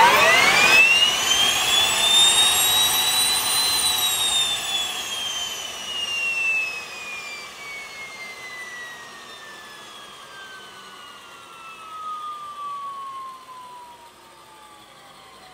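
Solar T62-32A small gas-turbine engine being spun up by its electric starter: a high whine that climbs in pitch for about four seconds, then falls steadily and fades as the turbine winds down.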